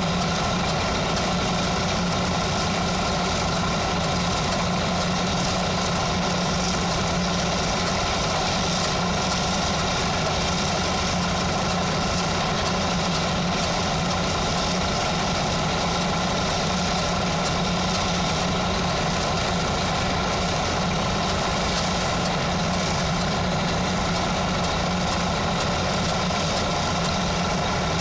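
An engine running steadily at an even speed, with a constant hiss over it and no change in pitch or level.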